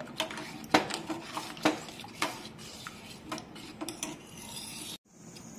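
Steel spoon stirring hot milk in a stainless steel pan, scraping and clinking against the bottom and sides about every half second. The milk is kept moving so it doesn't stick to the bottom. The sound cuts off suddenly about five seconds in.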